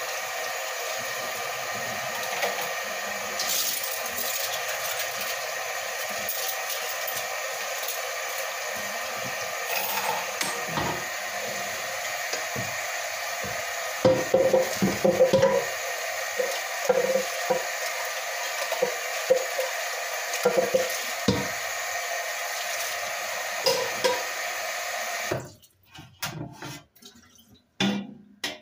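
Kitchen tap running steadily into a sink while dishes are washed, a bit noisy. Around the middle a metal bowl clatters loudly against the sink, with more knocks of dishes after it. The running water cuts off a few seconds before the end, leaving only a few knocks.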